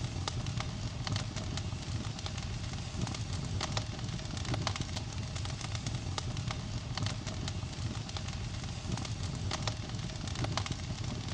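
Wood campfire crackling, with frequent sharp irregular pops over a low steady rumble.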